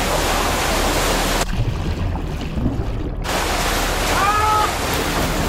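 Steady rushing water, as of a toilet cabin flooding. It turns muffled for about two seconds in the middle, and a short rising-and-falling tone sounds about four seconds in.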